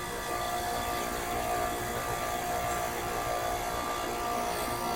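Heat pump outdoor unit running in its defrost cycle: a steady mechanical hum with a few constant tones over a even hiss.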